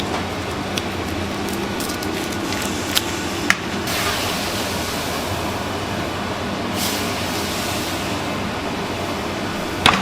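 Steady machine-like hum and hiss, with a couple of light clicks about three seconds in and brief swells of hiss midway.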